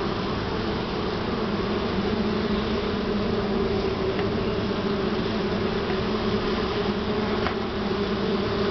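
Honey bees buzzing in flight around the entrance of a wild colony in a hollow tree: a steady droning hum.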